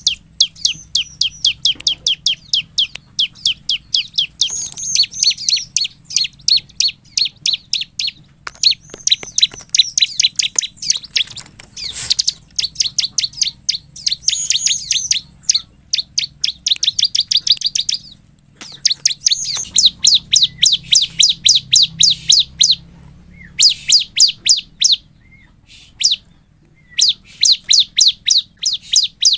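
Bar-winged prinia (ciblek) singing persistently: long runs of short, sharp, high notes at about three or four a second, in phrases several seconds long with brief pauses between them.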